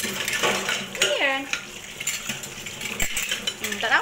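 Plates and utensils clinking and scraping in a stainless steel sink during hand dishwashing, with tap water splashing. About a second in, a short voice-like sound falls in pitch.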